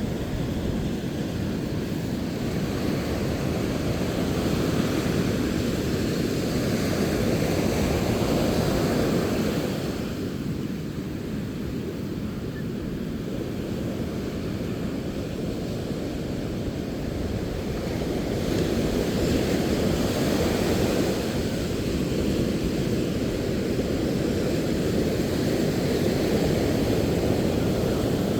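Sea surf washing and breaking in a steady low rush that swells, eases about ten seconds in, then builds again, with wind buffeting the microphone.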